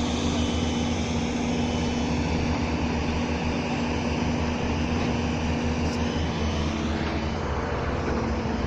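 Heavy hydraulic excavator's diesel engine running steadily with a constant hum. A short high beep repeats about once a second in the first half.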